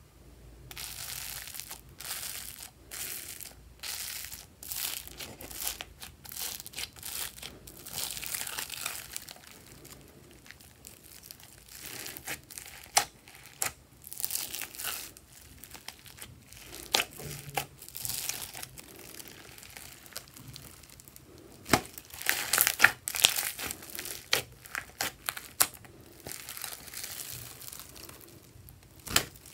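Foam beads crackling and crunching as hands press and fold slime into them, in irregular bursts of short crisp crackles with a few sharp snaps, densest and loudest in the last third.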